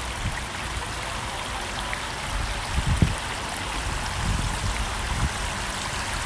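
A thin sheet of water running and trickling steadily over a granite fountain wall, with a few low thumps about three seconds in.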